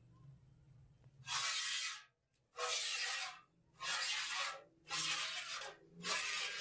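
Hand-milking a water buffalo into a metal pail: five hissing streams of milk, each under a second long, about one every second and a bit, starting about a second in.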